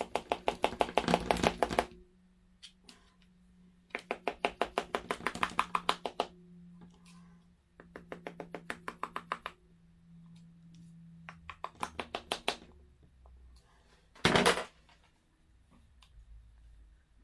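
Hand tools working the screws of a Yamaha PW80 engine: four runs of rapid, even clicks or taps, each a second or two long, then one sharp knock near the end.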